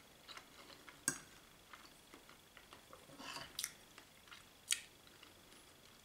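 Cutlery clicking and scraping on a plate: a few sharp, quiet clinks, the loudest about a second in and near the five-second mark, with a brief scrape around the middle.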